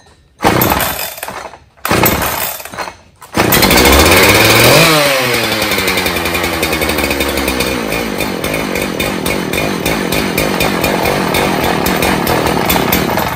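Husqvarna 372 XP two-stroke chainsaw, just rebuilt with a new piston and cylinder, being pull-started: two short bursts, then it catches a little over three seconds in, revs up and settles back, and runs steadily until it stops suddenly near the end. It is running on a carburetor that has not yet been adjusted after the rebuild.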